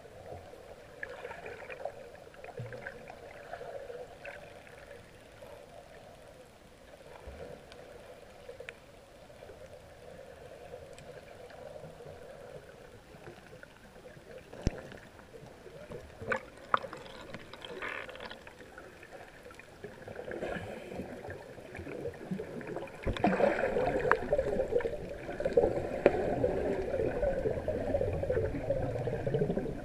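Water heard through a submerged camera: a muffled, steady underwater wash with a few sharp clicks, turning into much louder churning and gurgling about two-thirds of the way through.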